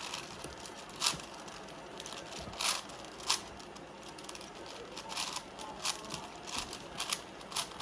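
Plastic clicks and clacks of a 5x5 Rubik's cube's layers being turned by hand, coming irregularly every half second to second; the cube is stiff and super hard to turn.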